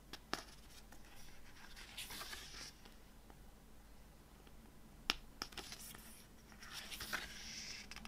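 Paper pages of a CD booklet being turned by hand: two soft swishes, about two seconds in and again near seven seconds, with a few light clicks and taps of the handling in between.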